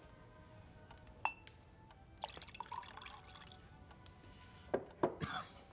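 Liquor poured from a cut-glass decanter into a crystal tumbler. A single ringing glass clink about a second in, then liquid splashing and trickling into the glass, and two sharper glass-on-glass knocks with a last splash near the end.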